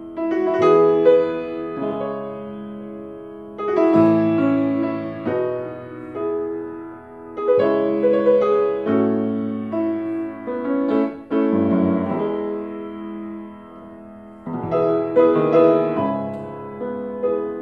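Solo grand piano playing a slow, gentle piece of chords and melody: phrases swell and fade, a new one beginning every three to four seconds.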